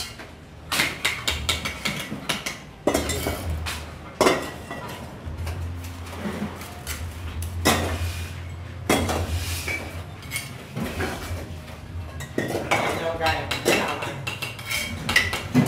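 Steel bricklaying trowel tapping and scraping on hollow clay bricks and mortar: a run of sharp metallic clinks and knocks.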